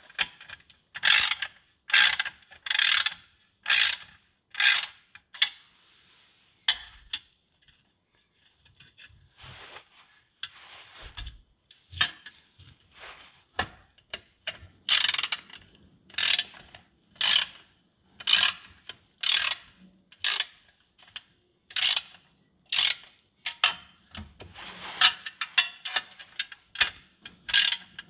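Socket ratchet clicking in repeated back-and-forth strokes, about two a second, with brief pauses between runs. It is tightening the flange nuts that hold a motorcycle exhaust header pipe to the cylinder head, alternating sides to draw it down evenly.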